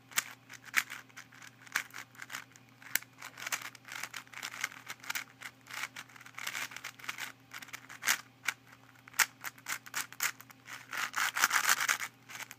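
QiYi Valk 4 M 4x4 speedcube, the stronger-magnet version, being turned by hand: its plastic layers click and rub in quick, irregular turns, busiest near the end.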